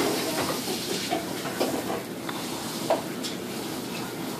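Kitchen sink sprayer spraying water onto a puppy in a stainless steel sink: a steady hiss of water, with a few small knocks and taps.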